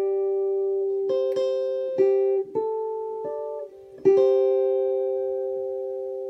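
Background music of plucked guitar notes, ending on a chord about four seconds in that rings on and slowly fades.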